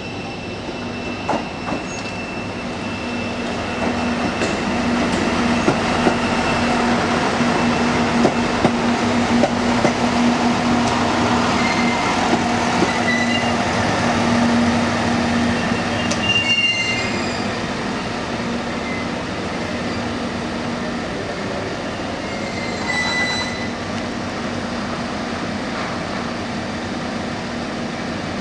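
KiHa E130-500 series two-car diesel railcar arriving at a station platform. Its diesel engine hums with a steady low tone while the wheels click over rail joints, louder as the cars pass close by. Short high squeals come as it brakes, and it settles to a steady idle once stopped.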